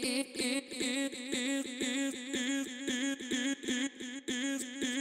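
Short slices of a sung vocal, triggered as a MIDI pattern from Ableton's Simpler, repeating in a quick, even rhythm on a steady pitch. Playback is in Complex Pro warp mode, with the formant setting being adjusted so the vowel colour of the chops shifts.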